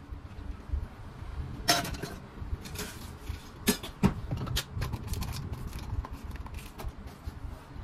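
Handling noise as a drink is finished: a few sharp knocks and clacks, then a run of lighter plastic clicks as a clear dome lid is pressed onto a tall plastic cup, over a low rumble.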